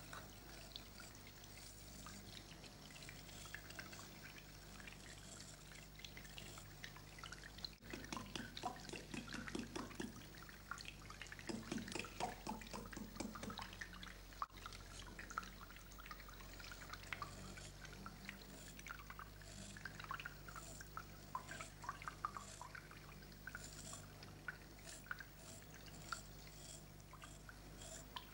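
Water running from a tap into a bathroom sink, splashing and pattering as a razor is rinsed under the stream, busiest in the middle. A faint steady hum lies underneath.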